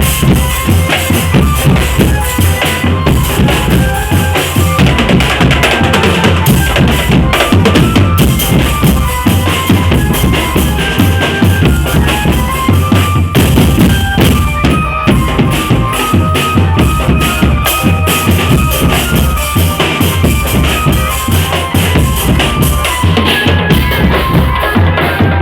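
Indonesian street drum band playing loudly and without pause: a heavy, steady beat of bass drums under rapid snare drumming, with short melodic notes carried over the top.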